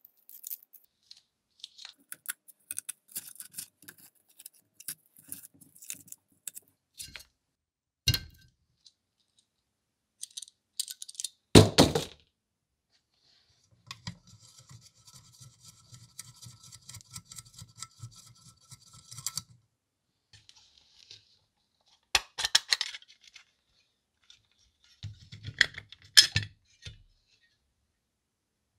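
Metal parts and hand tools clinking, knocking and scraping as they are handled, with one sharp, loud knock near the middle. A few seconds of fast, even rattling follow it, then more clunks.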